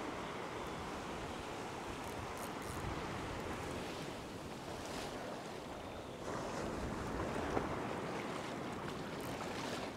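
Ocean surf washing up a sandy beach, small waves breaking and water swirling through the shallows, with wind on the microphone. The wash grows louder about six seconds in.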